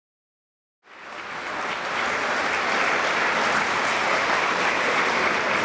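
Silence, then an audience's applause starts about a second in, swells quickly and holds steady.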